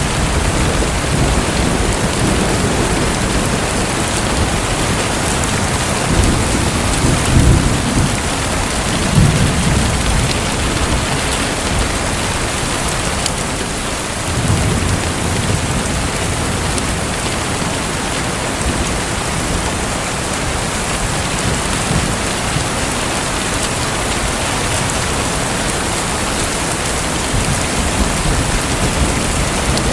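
Steady rushing hiss of falling or splashing water, like heavy rain, with low rumbles swelling up a few times, about 7, 9 and 15 seconds in.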